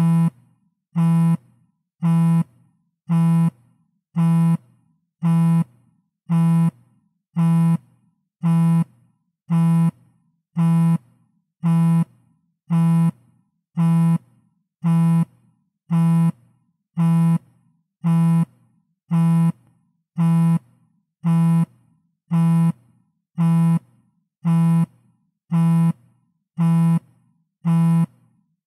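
iPhone vibrating on a table: short buzzes of under half a second, repeating evenly about once a second.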